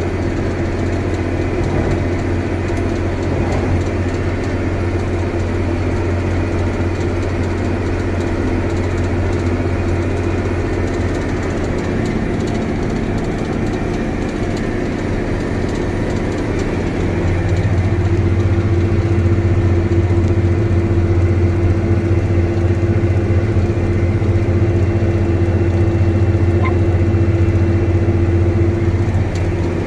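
A John Deere tractor's diesel engine running steadily at about 1800 rpm, heard from inside the cab as it pulls an air seeding drill. The drone gets louder a little over halfway through, with a higher hum coming up over the low one.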